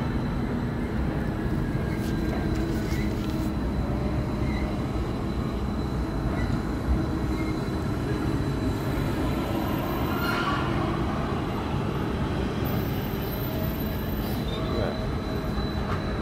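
Steady low rumble of container-terminal machinery: the automated gantry stacking crane working over the lane, with an idling truck, and a faint steady high whine throughout. A brief higher-pitched scrape or squeal stands out about ten seconds in.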